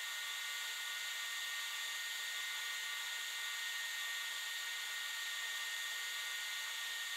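LaserPecker 2 portable laser engraver running as it engraves lettering into leather: a steady high whine over a hiss.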